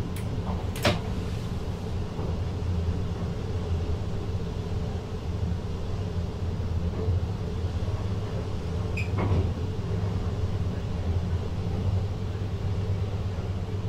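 Steady low hum and rumble in the driver's cab of a VIRM double-deck electric train, with two sharp clicks in the first second and another about nine seconds in.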